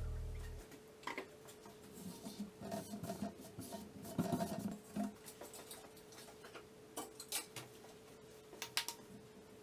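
Background music fades out in the first second. Then faint clicks and light knocks of handling on a workbench, over a faint steady hum.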